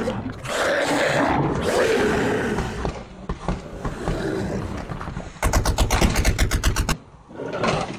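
Monster-like roaring and growling sound effect for the angry green giant figure, then, about two-thirds of the way through, a rapid rattling burst of about ten shots a second, like machine-gun fire, lasting about a second and a half.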